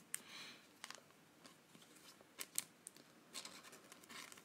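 Faint scratching and crinkling of a thin clear plastic sleeve as a trading card is handled and slipped into it, with a few light ticks, a pair of sharper ones about two and a half seconds in.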